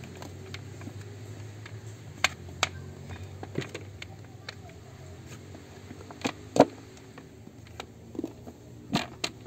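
Collapsible plastic-and-silicone bucket being pulled open by hand: a series of sharp clicks and pops, the loudest about two-thirds of the way through, over a steady low hum.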